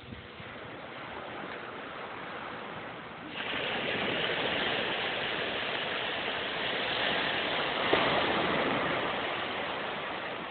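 Small waves washing onto a sandy beach: a steady hiss of surf that swells suddenly about three seconds in as a wave comes up the sand, then slowly fades.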